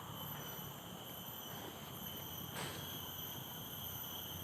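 A steady, high-pitched drone from a chorus of forest insects, with one faint tap about two and a half seconds in.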